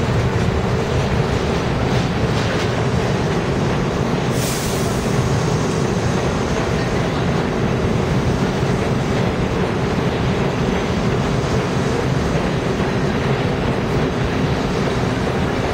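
Stainless-steel NYC subway train rolling past the platform: a steady rumble of wheels on rail, with a short hiss about four seconds in.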